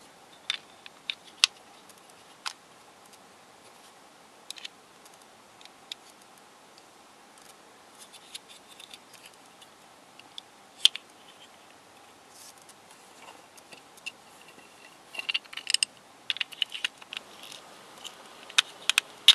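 Hard plastic pieces of a Square-2 twisty puzzle's core clicking and tapping against each other as they are handled and fitted together, with a quick run of scratchy clicks near the end.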